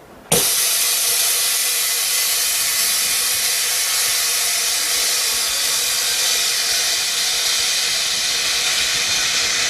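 An LCD bubble removal machine vents its compressed air in a loud, steady hiss, which marks the end of a de-bubbling cycle. The hiss starts suddenly just after the beginning.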